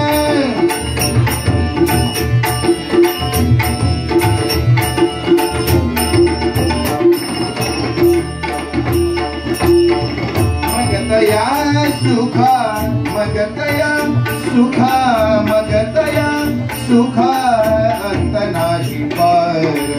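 Instrumental interlude of a bhajan: harmonium chords over pakhawaj and tabla drumming, with a steady ticking of small hand cymbals keeping time. About halfway in, a voice joins with a sliding wordless melody.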